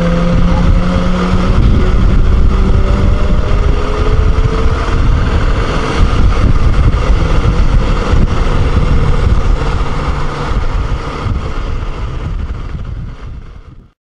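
BMW G650 Xcountry single-cylinder motorcycle under way, with engine, tyre and wind rush on the microphone. The engine note rises over the first few seconds, then settles into a steady rumble. The sound fades out near the end.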